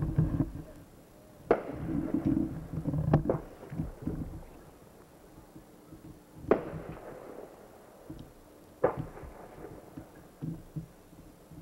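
Aerial fireworks going off: a series of sharp bangs, four loud ones a few seconds apart with a few lighter pops among them, each trailing off in an echo.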